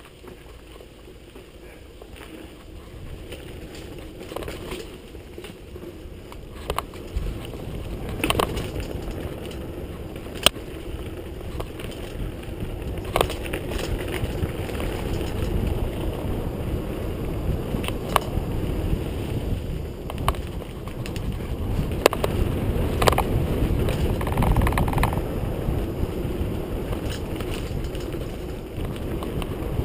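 Mountain bike riding fast down a dirt singletrack: wind rush on the microphone and tyre rumble grow louder as speed builds over the first half. Sharp knocks and rattles come from the bike over bumps and roots.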